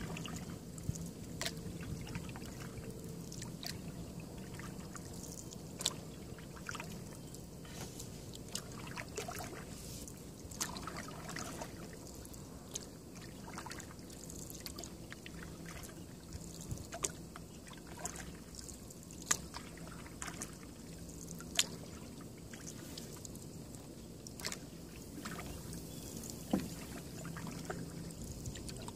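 A canoe being paddled on calm water: paddle strokes through the water with many scattered, sharp little clicks and knocks at irregular moments, over a steady low hum.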